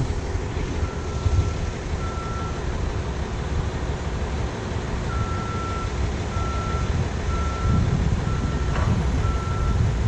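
Reversing alarm of a construction vehicle: one steady-pitched beep about every second, pausing for a few seconds in the middle, over a steady low rumble.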